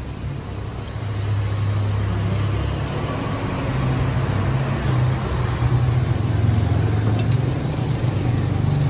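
A motor vehicle's engine running close by, a low drone that grows louder over the first few seconds and then stays loud.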